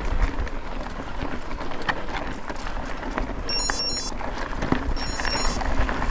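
Cannondale Scalpel mountain bike ridden over a rough dirt trail: tyre noise and a steady rumble of wind on the action camera's microphone, with frequent small knocks and rattles from the bike. Two short bursts of high chirping sound in the middle.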